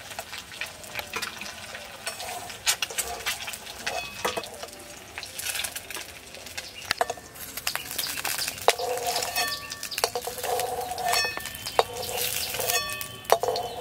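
Steel spatula clinking and scraping against a metal kadai and a steel plate as fried duck eggs are lifted out of hot mustard oil, over a faint sizzle of frying. The clinks come over and over, some ringing briefly in the second half.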